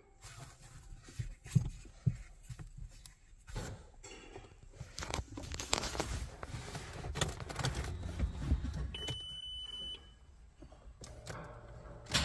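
Irregular jangling and clicking like car keys being handled, over a steady low rumble that cuts off about ten seconds in. A short high electronic beep sounds about nine seconds in.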